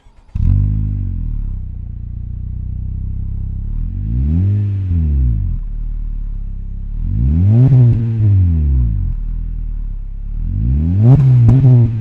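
Exterior exhaust note of a 2022–23 Honda Civic Sport's 2.0 L four-cylinder through a MagnaFlow NEO Series straight-through cat-back exhaust. The engine catches with a brief rev flare, settles to idle, then is revved three times, each rev higher than the last, the third a quick double blip.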